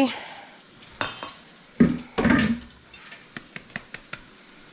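Salad spinner's plastic basket knocking against a stainless steel bowl as broccoli florets are tipped out. There is a knock about a second in, a louder clatter near two seconds, then a few light ticks.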